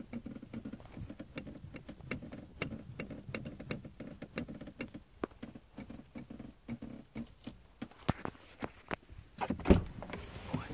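A broken Ford Focus 3 car seat creaking and knocking under a shifting body: an irregular run of sharp clicks and rattles, with a heavier thump near the end. Something inside the seat has failed, which the owner suspects is a spring or a snapped weld in the seat frame.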